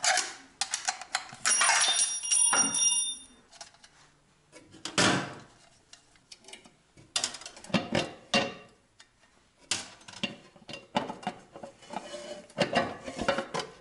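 The air filter housing on a VAZ 2106 being unfastened by hand: irregular metal clicks, scrapes and rattles from the lid and its nuts, with a brief high-pitched squeal about two seconds in.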